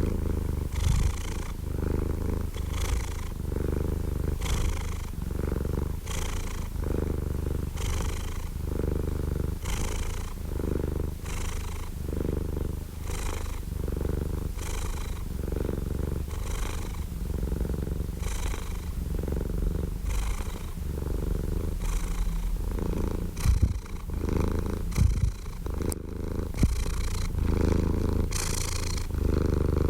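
Domestic cat purring steadily: a low rumble that swells and eases with each breath, about once a second. A few brief, louder bumps come around three-quarters of the way through.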